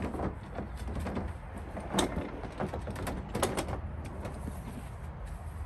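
Handling noise on an unstarted inverter generator's casing: a few clicks and knocks, the sharpest about two seconds in and a cluster just after three seconds, over a steady low rumble.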